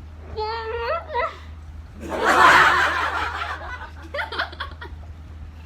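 Young women laughing and giggling, with a loud, breathy outburst about two seconds in and a short run of quick laughs after it.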